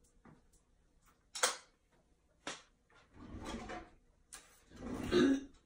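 Kitchen handling noises: two sharp knocks, then sliding, rattling sounds that grow louder near the end.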